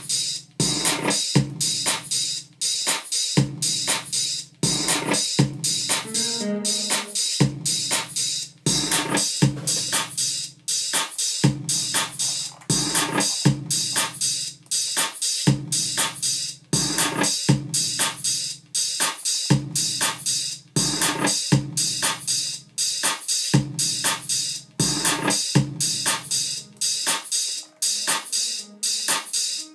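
Electronic house-style beat programmed on a Native Instruments Maschine MK2: a steady drum-machine pattern of kick and hats with synth sounds over it. The deep bass drops out near the end.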